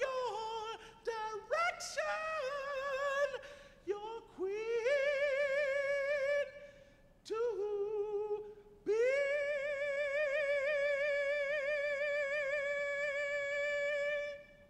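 A man's solo voice singing without accompaniment: a run of wavering, ornamented high notes, then one long high note held with vibrato for about five seconds, cutting off just before the end.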